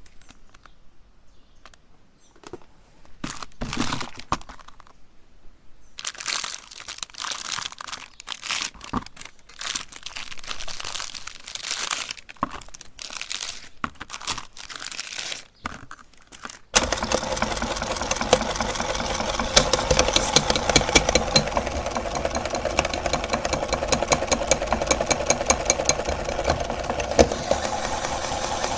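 Packaging crinkling and rustling as it is handled. About 17 seconds in, an electric meat grinder switches on and runs steadily, its motor humming with a fast rattle.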